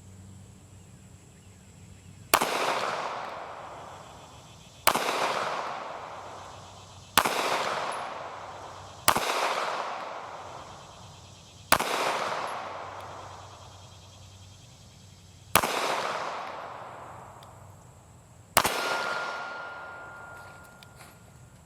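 Seven single 9mm shots from a Glock 43 subcompact pistol, fired slowly about two to four seconds apart, one-handed with the support hand, at steel targets. Each shot is followed by a long fading ring.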